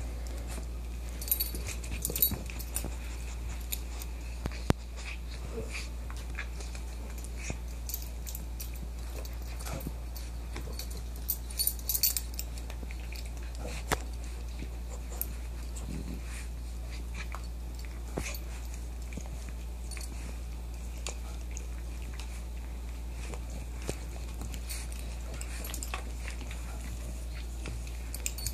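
Dog chewing and mouthing a soft plush toy: scattered short clicks and rustles, bunched a second or two in and again around eight to twelve seconds in, over a steady low hum.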